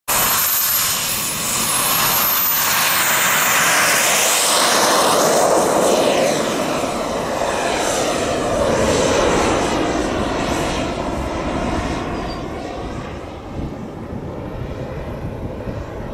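Behotec 220 model jet turbine of a 2.5 m Tomahawk Aviation Futura RC jet, on its takeoff run and climb-out: a high turbine whine that dips and rises in the first few seconds, then holds, over a steady rushing roar. The sound fades in the last few seconds as the jet climbs away.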